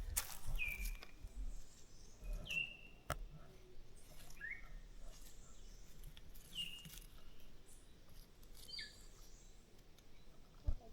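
A bird's short call, a quick downward-sliding note, repeated about every two seconds, with a few faint knocks.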